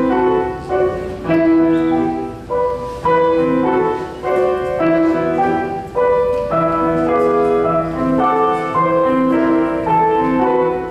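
Grand piano played four hands by two pianists: a classical duet of struck chords and melody notes that ring and fade in a steady rhythm.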